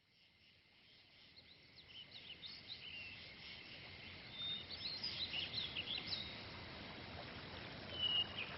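Several small birds chirping, with many short rising and falling calls over a steady hiss, fading in about a second in.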